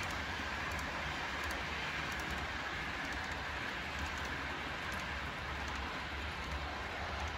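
HO scale double-stack intermodal well cars rolling past on model track: a steady rolling rumble with a low hum and faint ticks now and then from wheels crossing rail joints.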